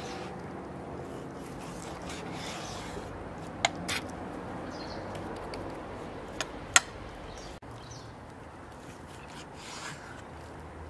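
Kitchen knife slicing raw lamb on a wooden cutting board, with soft rubbing and scraping strokes. Four sharp clicks come in two pairs, one a little before the middle and one about three seconds later.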